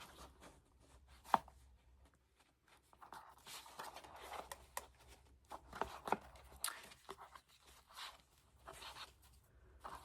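Paper and thread being handled while a junk journal's binding is re-tied: soft rustling of paper with scattered light taps, and one sharp click about a second in.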